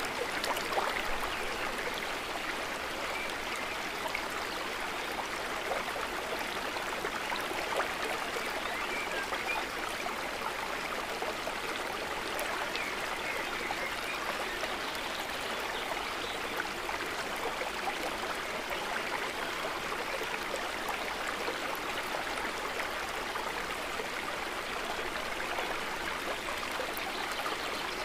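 Water trickling and babbling steadily, a soft continuous splashing with no change in level.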